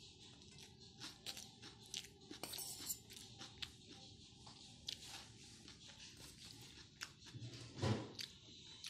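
Faint scattered clicks and crunches of eating. About a second before the end comes a louder scrape as a steel spoon scoops rice off a steel plate.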